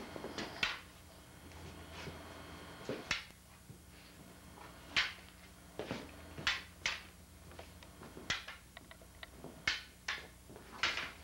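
Prop lightsaber poles knocking together in a sparring duel: a string of about a dozen sharp, irregularly spaced clacks over a faint steady low hum.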